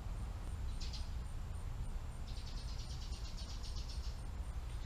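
Insect trill, a fast even buzzing lasting about two seconds in the middle, over a steady low background rumble, with a short hiss about a second in.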